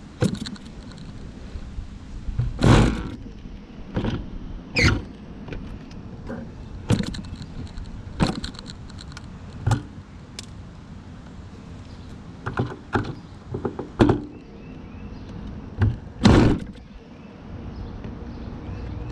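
Hand tools clinking, scraping and knocking on a model airplane's engine and its mount as the bolts are worked on. There are a dozen or so sharp clicks and knocks, and a few longer rasping scrapes, the loudest about three seconds in and near the end.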